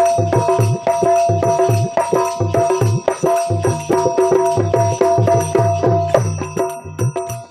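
Instrumental folk bhajan music: a steady tambura drone with a fast, even drum beat and rattling percussion.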